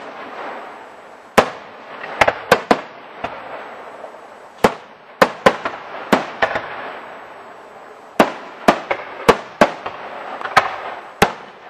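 Aerial fireworks going off in rapid succession: well over a dozen sharp bangs at irregular intervals, with a continuous crackling hiss between them.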